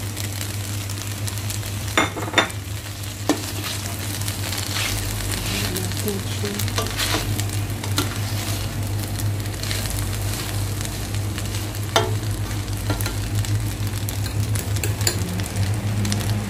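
Fusilli, bacon and chicken being stirred and tossed in a hot stainless steel pan, sizzling, over a steady low hum. The spoon knocks sharply against the pan a few times about two to three seconds in and once more near twelve seconds.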